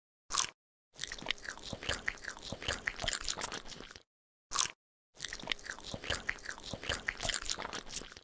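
Crisp crunching eating sound effect in two stretches of about three seconds each, a dense run of crackles and bites, each stretch preceded by a short swish.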